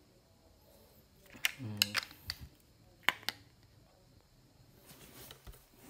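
Sharp clicks and taps of a Garmin rechargeable NiMH battery pack being handled and fitted into the battery compartment of a Garmin GPSMAP 64sc handheld GPS: about half a dozen clicks over roughly two seconds.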